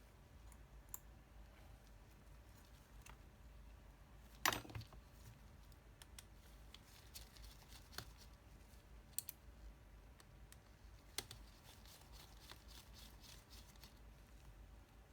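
Faint scattered clicks and taps of small tools handling an e-reader during a repair, with one louder clack about four and a half seconds in and a quick run of light clicks near the end.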